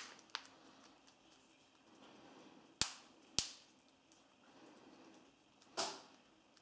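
Plastic back cover of an LG F60 smartphone clicking as its snap clips are worked loose by hand: a few sharp clicks, two about half a second apart near the middle, and a longer crackle near the end.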